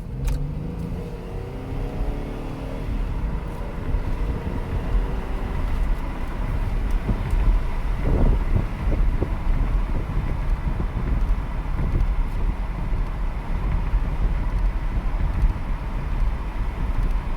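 Chevrolet Impala Limited accelerating, its engine note rising over the first few seconds, then steady engine and road noise at cruising speed.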